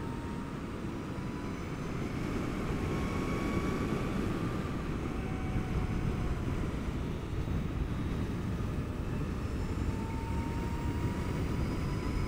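Zero DSR electric motorcycle cruising at speed: steady wind rush over the microphone and tyre noise on the road, with a faint high whine from the electric motor that rises gently in pitch.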